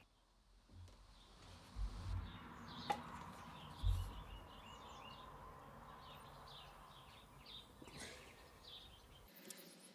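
Birds chirping in a run of short chirps, with two low thumps about two and four seconds in.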